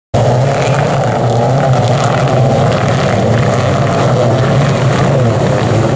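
Racing jet-ski engines running steadily at high speed, a loud drone that cuts in abruptly just after the start.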